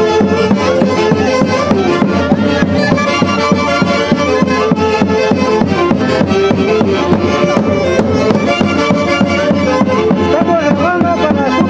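A live orchestra playing traditional music: several melodic instruments together over a steady beat.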